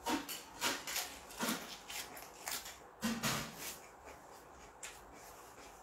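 Close-miked mouth noises of a man chewing a mouthful of food, with short wet lip smacks about twice a second that die down after about three and a half seconds.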